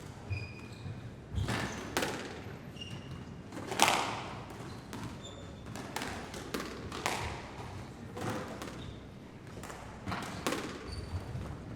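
Indoor sports hall ambience: irregular echoing thuds of balls hitting the floor and walls, the loudest about four seconds in, with a few short high squeaks in between, over a steady reverberant hall background.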